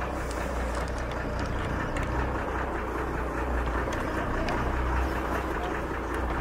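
Boat engine running steadily with a constant low hum, under a steady rushing of wind and sea.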